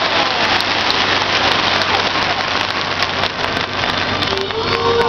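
Fireworks crackling densely: a thick, rain-like hiss of many tiny pops.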